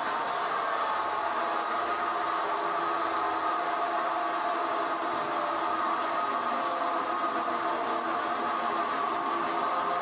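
Horizontal band sawmill running steadily, its band blade cutting through a log, with a constant machine hum and whine over a hiss.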